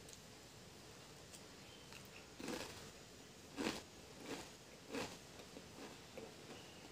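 Pringles potato crisps crunching as they are bitten and chewed close to the microphone. A handful of short crunches start about two seconds in, the loudest a little past the middle, then fade into smaller ones.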